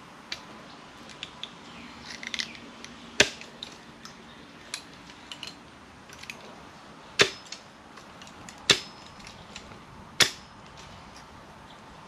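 Woody brush stems snapping while being cleared: four loud sharp snaps, the first about three seconds in and the other three about a second and a half apart near the end, with lighter clicks and crackles between.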